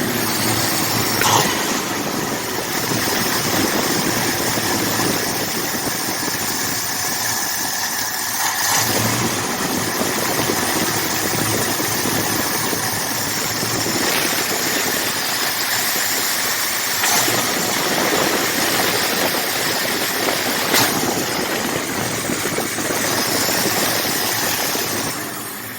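Freshly rebuilt engine of a 1979 Ford F-150 running steadily as it warms up, with a few faint clicks. The engine has been running well but will not settle into a proper idle.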